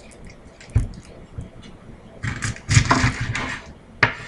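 Kitchen knife cutting an onion on a wooden cutting board: a knock about a second in, a longer stretch of scraping and rustling, and a sharp click near the end.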